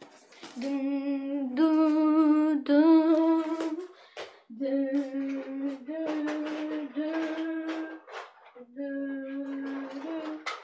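A person humming a slow tune of long held notes, each about a second long, stepping up and down in pitch with a slight waver, with short breaks between the notes.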